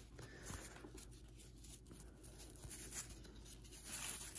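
Faint rustle of 1985 Topps football cards being slid and flipped by hand, with a few soft ticks of card edges.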